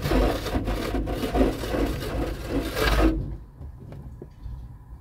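Foam-cloth car wash brushes scrubbing and slapping across the windshield and roof in a Sonny's wash tunnel, a dense rubbing flutter heard from inside the car. It cuts off abruptly about three seconds in, leaving a low rumble.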